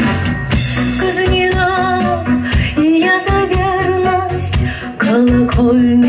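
A woman singing a slow song, accompanied on acoustic guitar, performed live.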